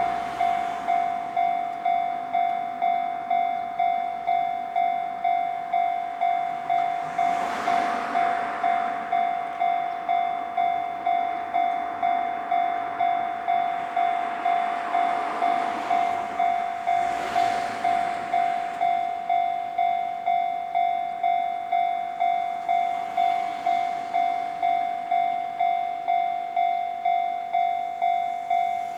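Japanese level crossing alarm ringing steadily, an even 'kan-kan' of about one and a half dings a second that signals a train approaching or passing. Brief rushes of noise swell and fade about eight seconds in, again around seventeen seconds, and faintly near twenty-three seconds.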